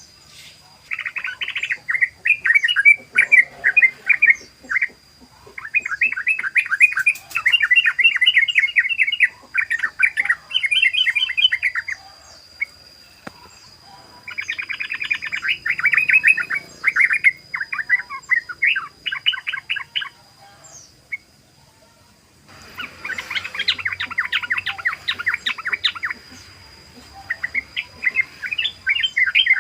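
Yellow-vented bulbul (trucukan) singing in rapid chattering bouts, the fast rolling 'ropel' song. The bouts of quick repeated notes last a few seconds each, with short pauses between them.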